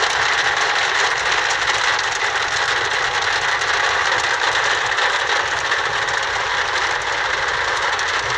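Heavy rain pelting a car, a steady hiss of many fine ticks over the low rumble of the car's engine and tyres on the wet road.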